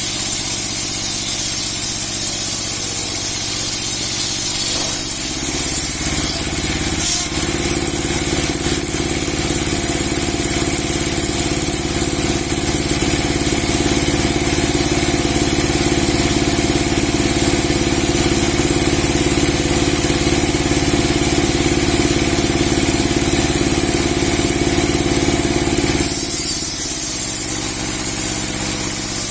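Log sawmill with a 60 cm steel blade, driven by a 30 hp engine, running steadily. The sound becomes fuller and heavier about six seconds in and eases back near the end.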